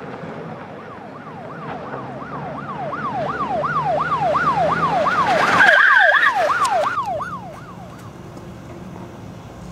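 Police siren wailing in fast up-and-down sweeps, about three a second, growing louder as the car approaches with tyre and engine noise. It peaks a little after halfway with a brief high squeal, then fades away.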